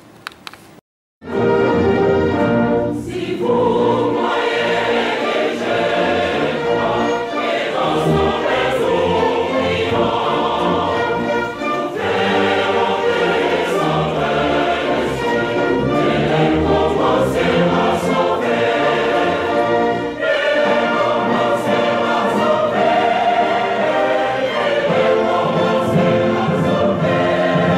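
Choir singing with music, starting about a second in after a brief silence.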